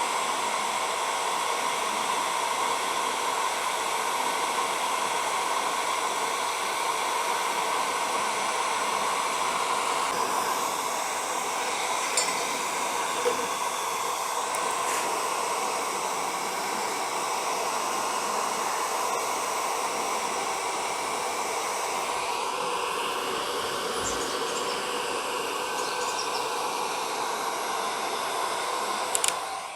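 Hot air gun blowing steadily, with a constant hum under the rush of air, heating the fog lamp's edge to soften the glue that holds its glass lens. It switches off just before the end.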